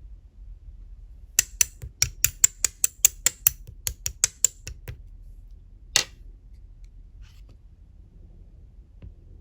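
A quick run of crisp clicks, about five a second for some three seconds, then one more click about a second later, from hands handling a tub of clear slime topped with fruit charms.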